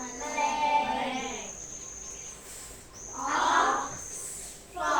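A person's voice holding a long, drawn-out vocal sound for about a second and a half, then shorter vocal sounds about three and a half seconds in and again near the end.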